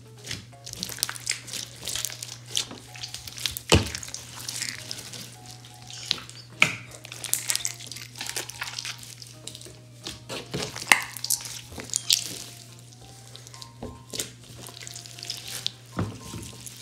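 A large mass of beaded slime being kneaded and pulled by hand, giving irregular wet, sticky crackles and squelches, with a few sharper pops about four and eleven seconds in. Quiet background music plays under it.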